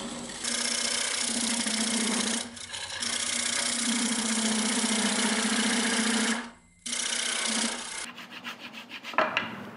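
A turning tool cutting into a spinning Austrian pine blank on a wood lathe, carving a recess for the chuck jaws: a steady dense scraping over a low tone. The cut stops briefly twice as the tool comes off the wood, and near the end it drops to a quieter, choppier scraping.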